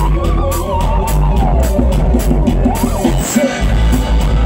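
Live band playing amplified music, heard from the audience: drum kit keeping a steady cymbal beat under bass, keyboards, electric guitar and a wavering saxophone lead. The low end drops out briefly near the end.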